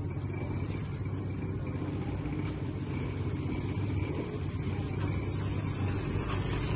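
Steady low rumble of an engine idling.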